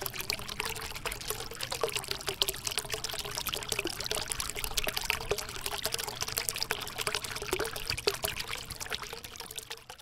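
Water falling from a small cement tabletop fountain, pouring from two spouts and trickling off a ledge into the tank below: a steady splashing trickle that fades out near the end.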